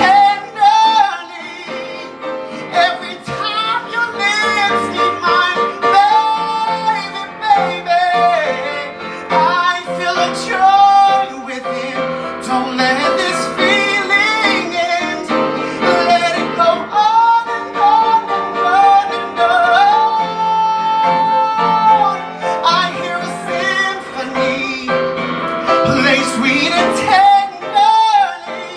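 A man singing into a microphone in a high voice, gliding between notes and holding long sustained notes, accompanied by piano.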